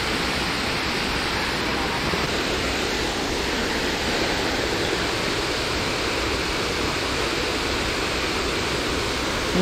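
Steady rushing noise with no breaks, spread evenly from low to high pitch.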